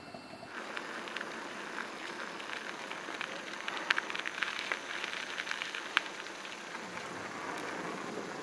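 Bicycle tyres rolling over a gravel trail: a steady crackling crunch with scattered sharp ticks of small stones, two louder ticks about four and six seconds in.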